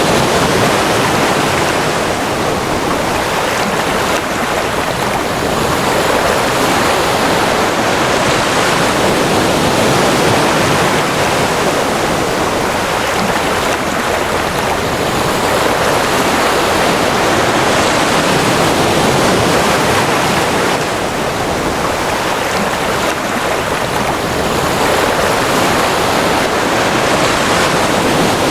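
Ocean surf: a steady rushing of breaking waves that swells and eases every several seconds.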